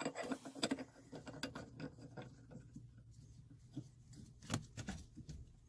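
Faint scattered metal clicks and light scraping of a brass check-valve fitting being turned by hand into a Butler truckmount's chemical injection pump, with a few louder clicks about four and a half seconds in.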